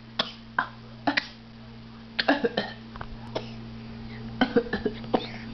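Deliberate fake coughs: a series of short, sharp coughs, singly and in small clusters, put on in play rather than from illness.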